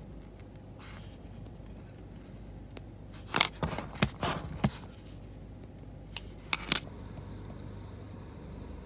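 Light handling noises as copper-foil-tape electrodes and their thin wires are moved about: a cluster of sharp clicks and scrapes about three to five seconds in, and a few more near seven seconds, over a steady low hum.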